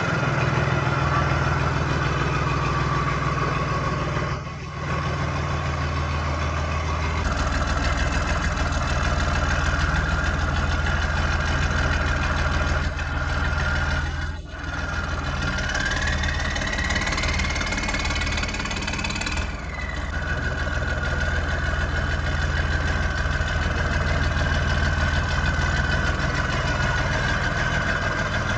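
Tractor's diesel engine running steadily at idle. A high whine rises in pitch and then drops back suddenly about two-thirds of the way through.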